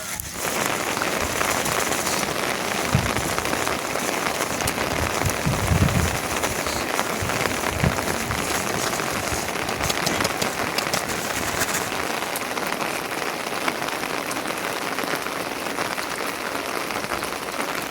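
Steady rain pattering on a surface, an even hiss flecked with fine ticks, with a few soft low thuds.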